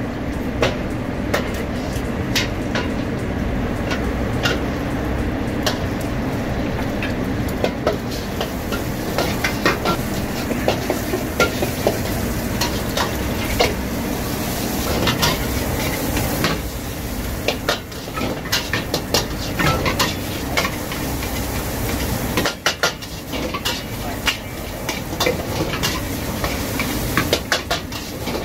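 Rice being stir-fried in a wok over a high gas flame: a metal spatula scraping and clanking against the wok in quick, irregular strokes, over continuous sizzling and a steady low rush. This is crab fried rice being wok-fried over very high heat.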